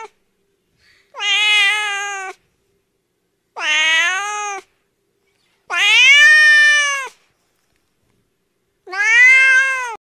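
Domestic cat meowing four times, each meow drawn out about a second and rising then gently falling in pitch, with pauses between.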